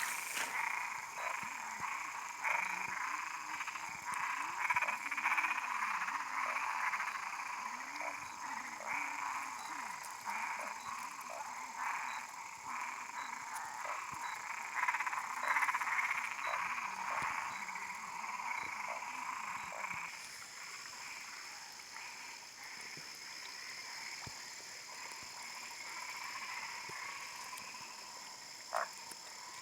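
Frogs calling in a chorus of quick, repeated croaks, several a second, thinning out after about twenty seconds, over a steady high-pitched background.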